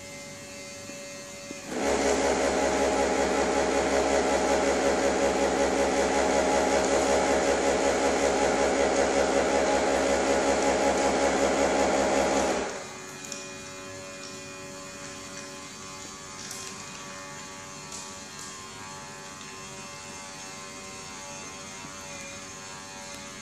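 Automatic dog food dispenser's electric motor running as it turns out kibble into the tray: a steady mechanical drone with a regular pulse that starts about two seconds in and cuts off suddenly about eleven seconds later, leaving a low steady hum.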